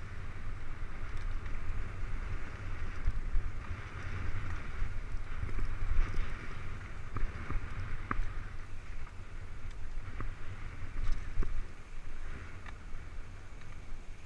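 Mountain bike rolling fast down rough dirt singletrack, heard from a camera on the rider: a steady buffeting rumble of wind on the microphone, a continuous hiss of tyres on dirt, and scattered clicks and rattles from the bike over the bumps.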